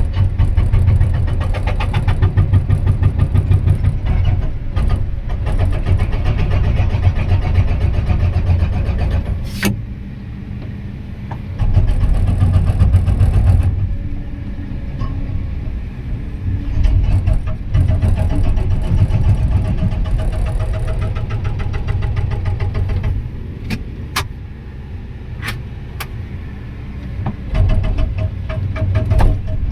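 Excavator-mounted hydraulic rock breaker hammering in rapid strokes, in bursts of a few seconds with short pauses between, over the steady running of the excavator's diesel engine. A few single sharp knocks stand out in the pauses.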